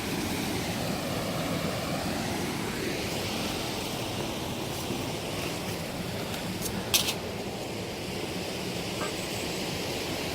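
River water flowing steadily in a continuous rush, with one sharp click about seven seconds in.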